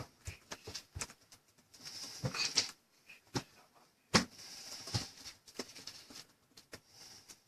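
Scattered, irregular clicks and taps of typing on a keyboard, one sharper tap about four seconds in.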